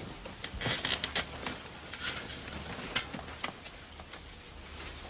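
Rustling and shuffling of a blanket and bedding as a man gets up and moves about, with a few light knocks and one sharp click about three seconds in.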